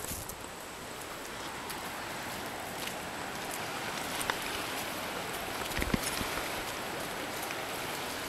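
Steady wash of sea surf and lapping water at a coral-rubble shore, with a few scattered clicks and crunches from footsteps on the coral gravel.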